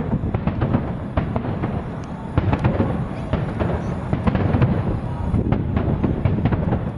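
Aerial fireworks shells bursting in rapid succession: a dense barrage of booms and sharp cracks over a continuous rumble.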